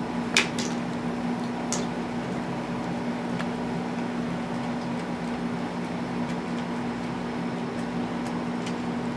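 Steady machine hum with a constant low tone. A few sharp clicks come in the first few seconds, the first the loudest.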